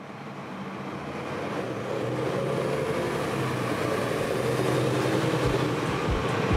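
City bus engine running, swelling louder over the first two seconds and then holding steady, amid street traffic noise. A few low thumps come near the end.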